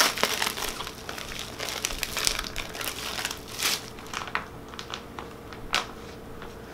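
Plastic mailer bag and packaging crinkling as it is torn open and handled: a dense run of crackles that thins to scattered ones in the second half.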